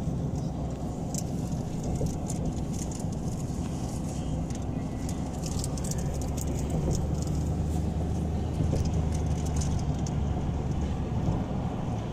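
Road noise inside a moving car: a steady low rumble of engine and tyres, with faint scattered clicks over it.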